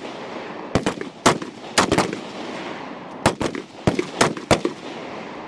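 Military rifles fired single shots on a range: about nine sharp cracks at uneven intervals from more than one shooter, with a pause in the middle.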